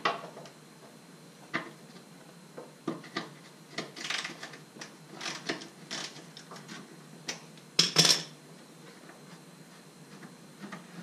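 Irregular metallic clinks and scrapes from hand tools on the exhaust pipe and hangers as a car's rear muffler is worked loose from its mounts, with one louder clank about eight seconds in.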